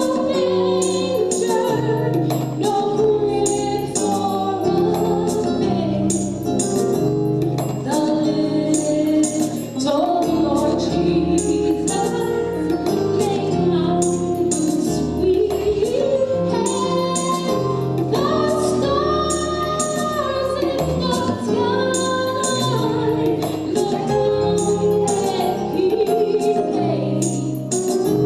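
A choir singing gospel music with instrumental accompaniment and a steady beat.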